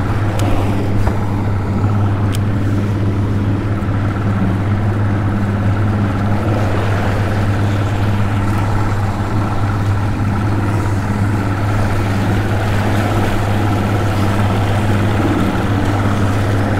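Boat's outboard motor idling, a steady low drone.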